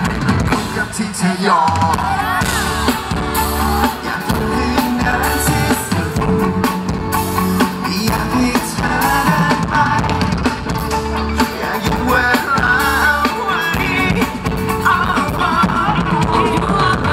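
Live pop song performed on stage: male vocals singing over a band with drum kit, heard from the audience.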